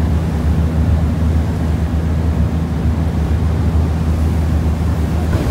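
A river cruise boat's engine running with a steady low hum, with water churning and rushing along the hull as the boat moves.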